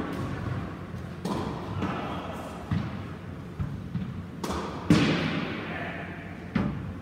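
Squash ball struck by a racket and rebounding off the court walls: a string of sharp hits and thuds, about seven or eight, each echoing in the enclosed court. The loudest comes about five seconds in.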